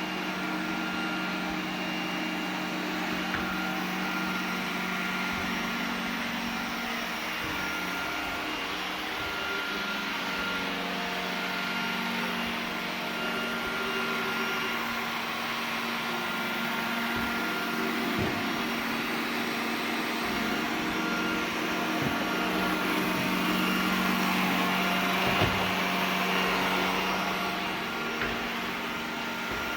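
iRobot Roomba 980 robot vacuum running: a steady motor hum and suction hiss, with a few light knocks in the second half.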